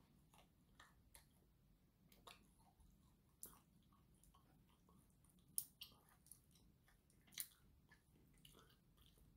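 Faint eating sounds: quiet chewing, and chopsticks clicking against plastic takeaway containers while picking up food, with a few sharper clicks among the soft ones.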